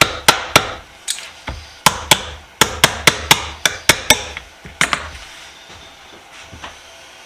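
A quick, uneven run of about fifteen sharp, hard knocks over about five seconds, then only faint small sounds.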